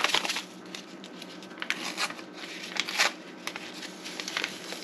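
Crinkling and rustling of small Sazón seasoning packets being opened by hands in disposable plastic gloves: a series of short crinkles, the loudest about two and three seconds in.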